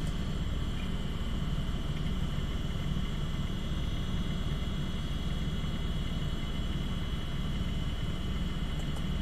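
Steady whir and hum of running computer hardware, an opened Maxtor 7120AT hard drive spinning alongside the PC, with a thin steady high tone above the hum.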